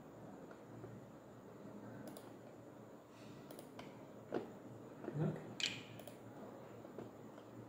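A few faint clicks and taps from a laptop's keys and touchpad being worked, scattered over quiet room tone, with the loudest cluster about five seconds in.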